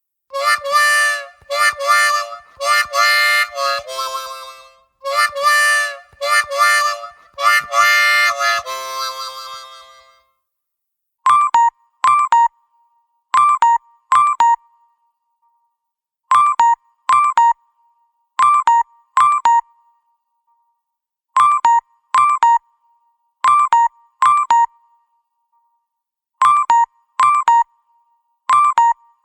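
LG K4 LTE smartphone playing ringtones. First comes a melodic ringtone of quick note phrases, which stops about ten seconds in. After a short gap, a simple electronic ringtone of short high beeps in quick clusters repeats every two to three seconds.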